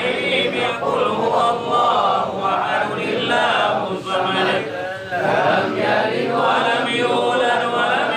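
A group of men chanting Islamic prayers together in unison, the tahlil dhikr recitation for the dead, with only brief breaks between phrases.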